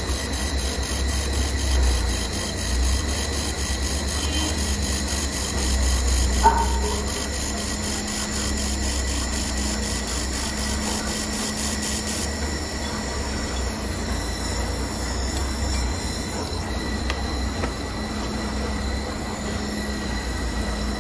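IPG LightWELD XR handheld fiber laser welder with wire feeder welding a stainless steel exhaust tube. Its modulated beam gives a fast, even ticking about four times a second over a steady machine whine and low hum. The ticking stops about twelve seconds in while the whine and hum carry on, and there is a brief squeak about six seconds in.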